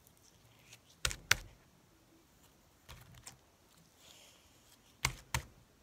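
Sticky slime with beads mixed in being pulled and squeezed by hand, giving sharp clicks and pops in pairs about a third of a second apart: about a second in, fainter around three seconds in, and again near the end.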